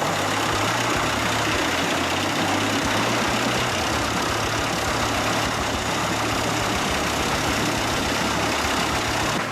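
Wood chipper running steadily: a low engine hum under a dense, even rushing noise from the machine.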